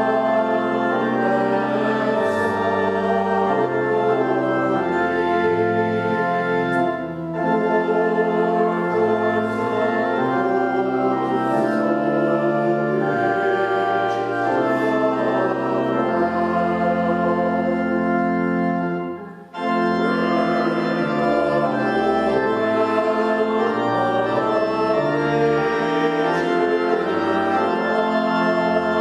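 Church organ playing a hymn in sustained, stepping chords, with a short break about two-thirds of the way through.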